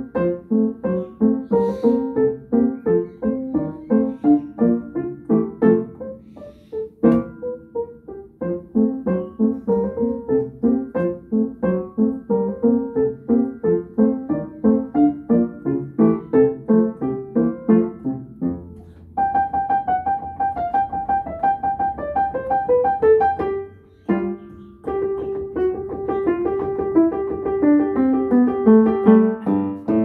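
Solo piano playing a ragtime piece in quick, steadily struck notes, with a brief break about twenty-four seconds in.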